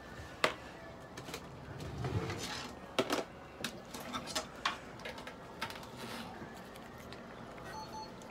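Scattered clicks and knocks of handling around a steel exam table as a cat is held and positioned, with short electronic beeps starting near the end.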